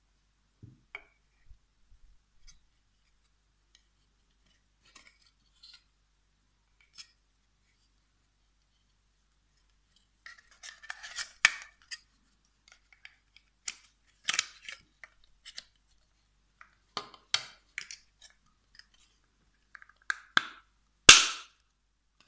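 Hard plastic model-kit parts being handled and fitted together: scattered clicks, taps and short scrapes, growing busier about halfway through, with the loudest sharp snap near the end.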